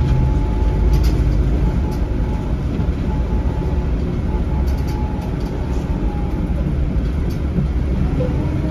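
Cabin sound of a NABI 40-SFW transit bus: its Cummins ISL inline-six diesel and ZF Ecomat automatic transmission running with a steady low rumble and a faint steady whine. A few light rattles click through it, about a second in, two seconds in and again around five seconds.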